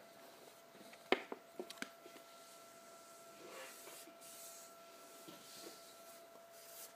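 Rubber-backed corner of a doormat dropping flat onto a wooden floor with a sharp slap about a second in, followed by a few small ticks. Later there is faint rubbing as a hand brushes the mat's edge.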